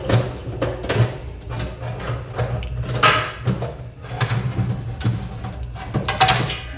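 Sheet-metal top cover of a Marantz DV4200 DVD player being slid back and lifted off its chassis: scattered clicks and scrapes of metal on metal, with one longer sliding scrape about three seconds in and a few more clanks near the end.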